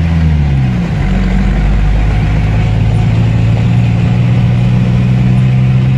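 UAZ off-roader's engine heard from inside the cab while driving: the revs drop within the first second as a gear is changed, then the engine pulls steadily, its pitch rising slowly. Rain and road noise run underneath.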